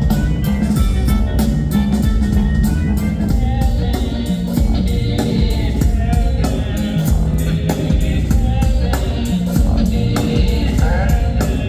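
Live band playing an instrumental passage: a drum kit keeping a steady beat over bass and organ-like keyboard sounds.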